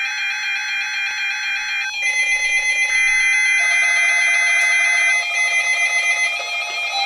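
Emergency Alert System SAME header data tones from a NOAA Weather Radio test, heard over a phone line: harsh, buzzing electronic tones whose pitch mix shifts every second or two, the coded header that comes before the 1050 Hz warning alarm.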